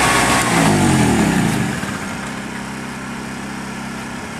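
A Harbor Freight 900-watt two-stroke generator is switched off while running: its engine winds down in falling pitch over about a second and stops. A Honda EU1000i inverter generator keeps running with a quieter, steady hum.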